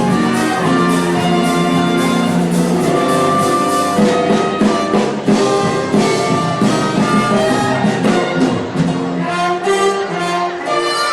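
Instrumental music from a stage musical's score: brass and bowed strings playing together, with no singing.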